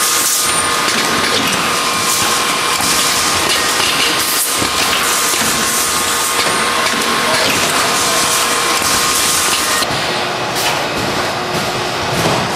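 Automatic tube stripping machine running: a dense, steady clatter of metal tubes and mechanisms, with a few brief hisses from its pneumatic cylinders.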